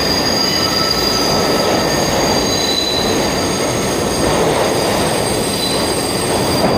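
NYC subway train rolling out of the station: a steady rumble of the cars with the steel wheels squealing in sustained high tones as they grind around the tight curve of the City Hall loop.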